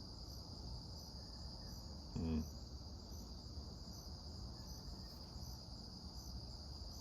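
Crickets chirping steadily in the background, a constant high trill with faint pulses about twice a second. There is one short low sound a little over two seconds in.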